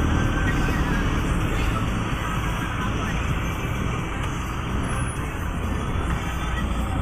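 Steady rumble of a bus's engine and road noise heard from inside the bus.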